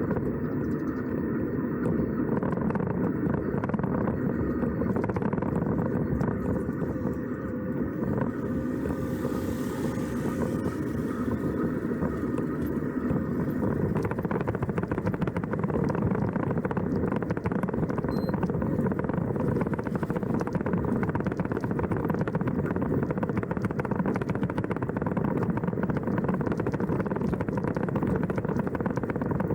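A vehicle's engine running steadily while under way, with even road and running noise and no breaks.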